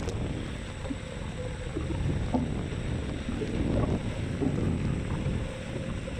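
Wind buffeting the microphone, with steady road rumble, while riding a Xiaomi M365 electric scooter.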